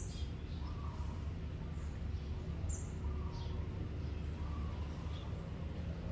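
Faint, scattered bird chirps, a few short high calls about a second apart, over a steady low rumble.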